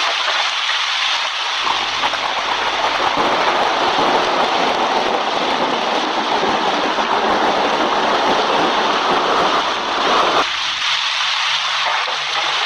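Recorded sound effect of steady heavy rain. About two seconds in, a deeper, louder layer of noise joins it, then cuts off abruptly near the end.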